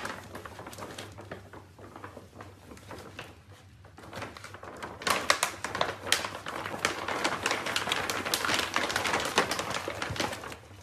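Crinkling and rustling of a foil-lined bag as puppies burrow into it and tug at it: a light, irregular crackle at first, growing busier and louder about four seconds in.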